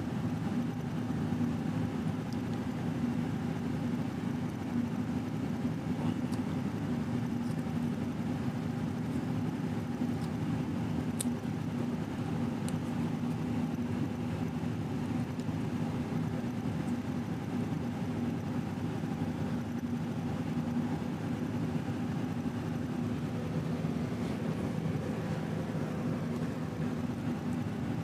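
Steady mechanical drone of a motor running at an even pitch, with a couple of faint clicks partway through.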